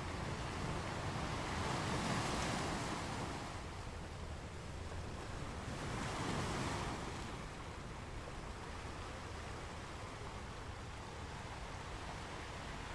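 Gentle ocean waves washing onto a beach: a steady hiss of surf, with two waves swelling and falling back, about two seconds and six seconds in.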